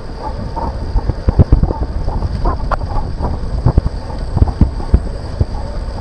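Wind rushing over an action camera's microphone on a moving road bike, over a steady low rumble from the tyres on the road. Frequent irregular knocks and rattles come as the bike jolts over rough, patched pavement.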